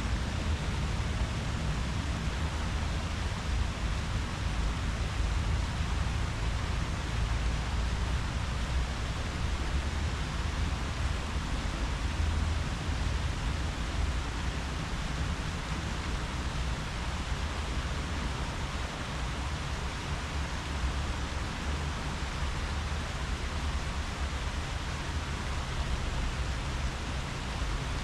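Leaves rustling steadily in the wind, an even hiss with no breaks, over a low, unsteady rumble.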